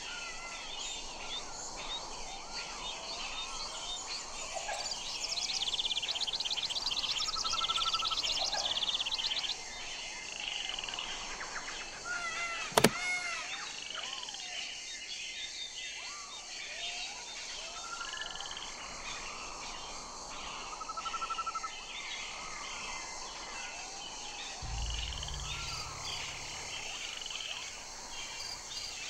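Albatrosses calling in a colony: many overlapping whistles, chirps and fast trills. There is a single sharp click about halfway through and a low rumble near the end.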